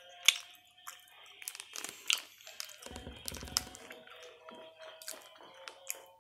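A person chewing and crunching food close to the microphone, with sharp crackling clicks throughout, the loudest near the start and about two seconds in, and a brief low rumble around three seconds in.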